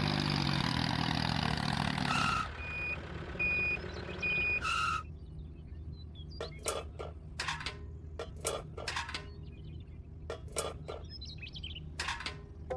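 A reversing alarm beeping several times in short, even beeps, after a busy burst of sound. Then scattered sharp clicks or taps.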